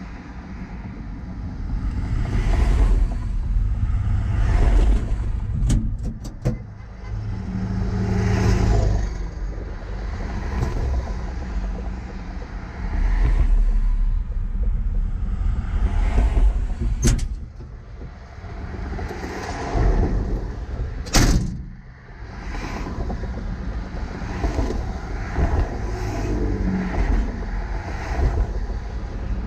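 Highway traffic passing close by a stationary vehicle, each car and truck swelling and fading in turn with tyre and engine noise and a heavy low rumble. A single sharp crack about three-quarters of the way through is the loudest moment.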